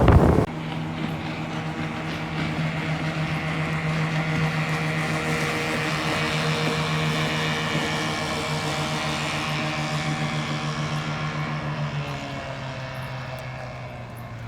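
15 hp two-stroke outboard motor running at a steady cruising speed on a small boat, then throttled back about three-quarters of the way through, its pitch falling and the sound quieting toward idle.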